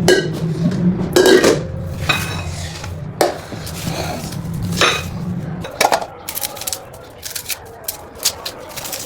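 Kitchen dishes and cutlery clattering and knocking, over a low steady hum that stops about six seconds in; toward the end come quick runs of sharp clicks and taps.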